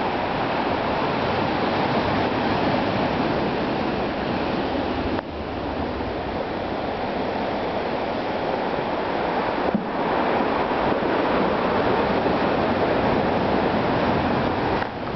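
Surf breaking and washing over a boulder beach: a steady, unbroken rushing noise.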